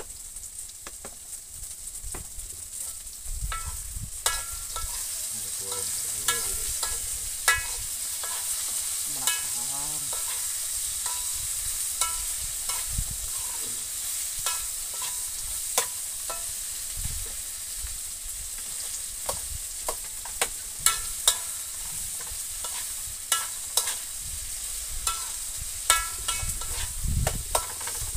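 Food frying in oil in a wok, a steady sizzle, while a metal spoon stirs it, scraping and clinking against the pan at irregular moments, some clinks leaving a short metallic ring. The clinks come more often in the second half.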